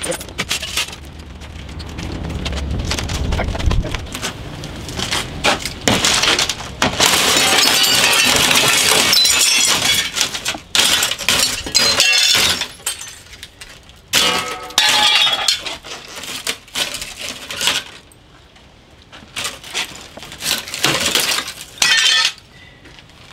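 Window glass being smashed out of an old window frame with a long-handled pick: repeated blows, panes breaking and shards crashing down. The loudest stretch is a long run of shattering about a third of the way in, followed by separate blows and crashes until near the end.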